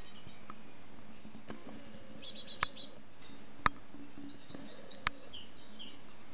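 Great tits calling around their nest box at fledging time: short high chirps, a quick burst of loud calls about two seconds in, then repeated two-note phrases, with three sharp clicks along the way.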